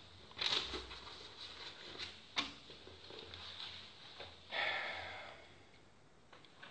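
Faint handling noises in a small room: a couple of short soft rustles and a sharp click about two and a half seconds in.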